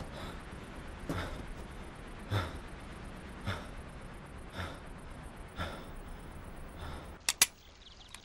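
A man breathing heavily, one breath about every second. Near the end come two sharp clicks in quick succession.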